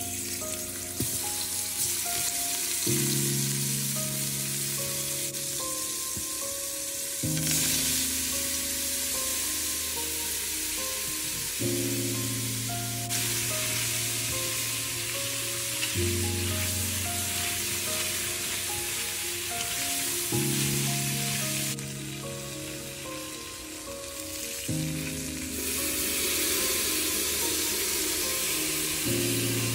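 Bacon sizzling and frying in a stainless steel pot, a dense crackling hiss that jumps abruptly in level several times. Under it runs background music of slow chords, changing about every four seconds.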